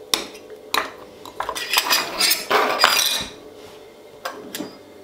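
Stainless steel ring cutter clinking and knocking as it is handled and set down on a wooden cutting board: a couple of sharp clicks, a busy run of metal clinks and rattles in the middle, then two light clicks near the end.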